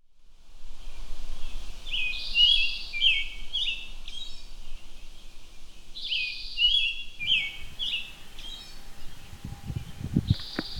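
A songbird singing, the same short falling chirpy phrase repeated about every four seconds over faint outdoor background noise, with a few low knocks near the end.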